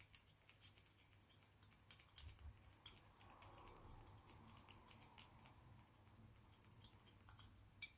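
Faint small clicks and taps of metal parts being handled as the choke plunger is unscrewed from a Suzuki GT750 carburettor, with two sharper clicks, one under a second in and one near the end.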